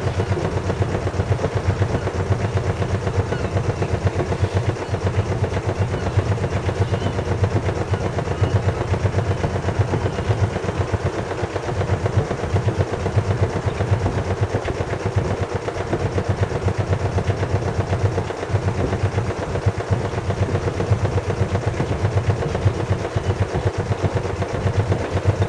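Sailing yacht's engine running at a steady, low, rapid pulse while motoring.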